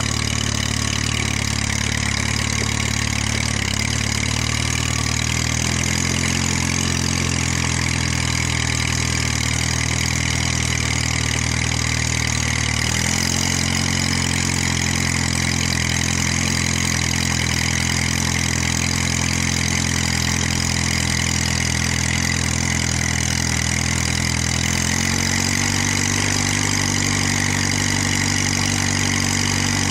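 Four-cylinder engine of a 1946 Case VAC tractor running steadily while the tractor drives along, heard from the driver's seat close to its upright exhaust stack. The engine speed steps up three times, about 6, 13 and 25 seconds in.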